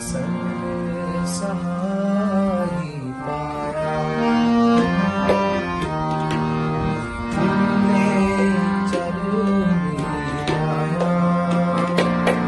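Rina Company harmonium with two banks of Khalsa reeds and a bass coupler, played as a melody over held low notes, with tabla strokes keeping time alongside.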